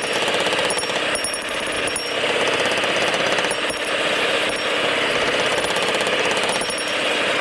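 Blacksmith's power hammer striking a forging in a rapid, steady run of blows.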